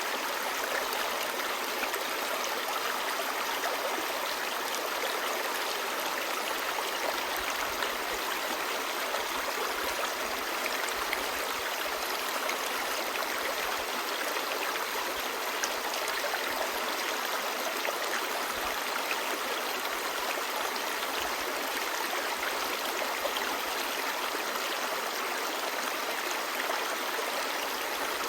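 A clear mountain stream babbling over rocks: a steady, even rush of flowing water.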